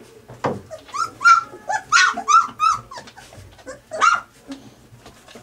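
Three-week-old golden retriever puppies squealing and yelping in a quick string of short, high cries while they jostle each other at their mother to nurse. A single knock comes about half a second in.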